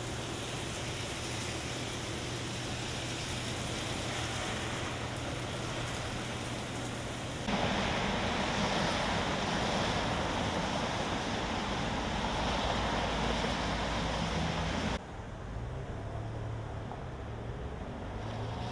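Heavy rain pouring down, a steady hiss, with cars driving through it on a wet road and a low hum of passing engines. The sound jumps louder about seven and a half seconds in and drops quieter at about fifteen seconds.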